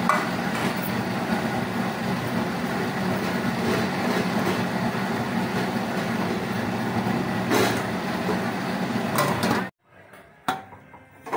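Steady rushing noise with a low hum from a gas stove burner and Maggi noodles boiling in water in an aluminium kadai, with a few metal clinks of the pan lid and utensils. The noise cuts off abruptly near the end.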